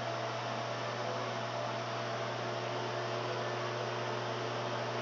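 1200-watt LG microwave oven running mid-cook: a steady electrical hum over an even whir of fan noise.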